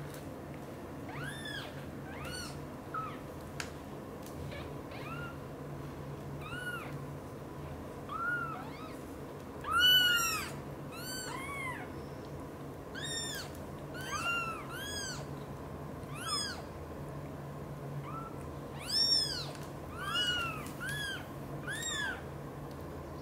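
Newborn British shorthair kittens mewing: a string of short, high-pitched cries that rise and fall in pitch, coming irregularly. Two louder cries come about ten seconds in and again near nineteen seconds.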